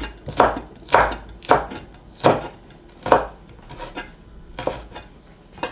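Chef's knife slicing red chili peppers on a wooden cutting board: slow, even chops, about eight knocks of the blade on the board.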